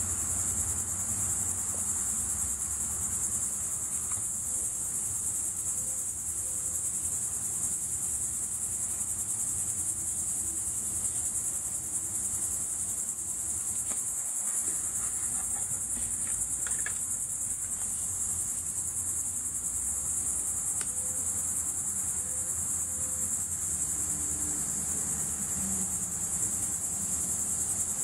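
A steady, high-pitched drone that runs without a break and never changes in level.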